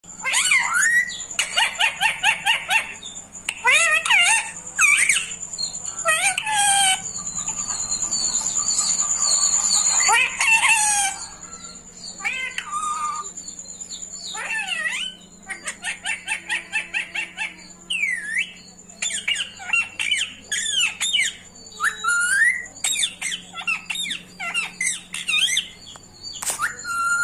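Parrot calling: a string of sharp squawks and chirps, some in fast repeated trains of short notes, with a harsher, noisier stretch about a third of the way in. A faint steady high whine runs underneath.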